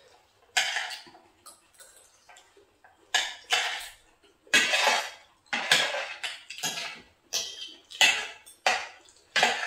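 Cutlery scraping and clinking against plates while eating, in short irregular strokes about once or twice a second.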